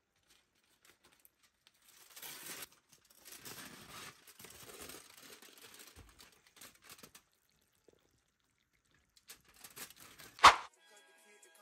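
Aluminium foil crinkling and rustling as it is peeled back off a glass baking dish, in fits over several seconds. About ten and a half seconds in comes a single sharp knock, the loudest sound.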